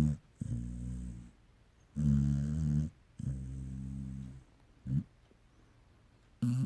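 Pungsan dog snoring in its sleep, a low rattling snore on each breath. Two full breaths, each a loud snore about a second long followed by a quieter, longer one, with short snorts about five seconds in and near the end.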